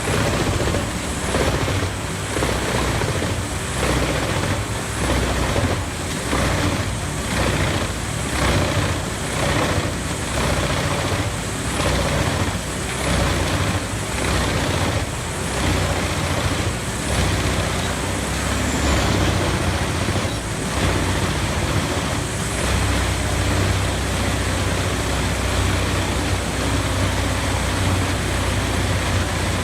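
Large wood chipper running, with a steady heavy engine rumble and a regular pulsing roughly once a second. After about twenty seconds the pulsing fades into a steadier, deeper drone.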